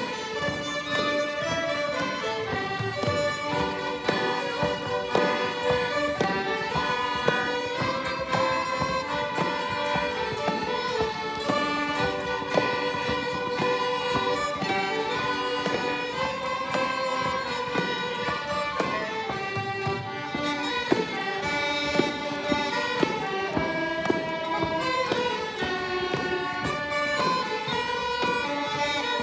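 A group ensemble playing an Irish traditional tune: fiddles carry the melody over strummed guitars and other plucked instruments, keeping a steady, even rhythm throughout.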